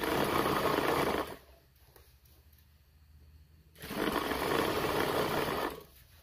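Juki industrial sewing machine running in two short bursts, the second beginning about four seconds in, as it stitches stretched elastic onto the edge of a fitted sheet.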